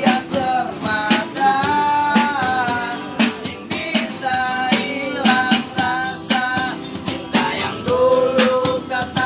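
A street busker singing with guitar accompaniment, the voice holding and sliding between notes over plucked and strummed strings.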